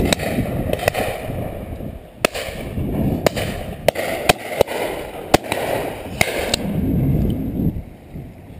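Shotguns firing at driven pheasants: a rapid scatter of about ten sharp reports of differing loudness, some close and some farther off, over wind rumbling on the microphone.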